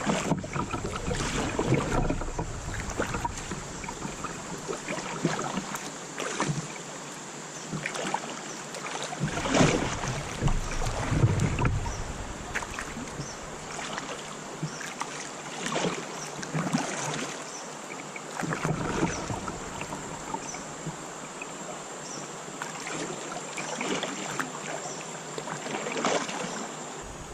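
Kayak paddle strokes dipping and splashing in river water at irregular intervals of a second or a few seconds, over a steady watery hiss.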